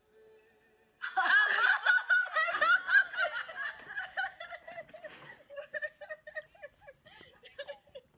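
A woman laughing hard in high-pitched, choppy bursts, heard through a laptop's speaker over a video call. The laughter starts about a second in and, from about five seconds in, settles lower into short repeated bursts.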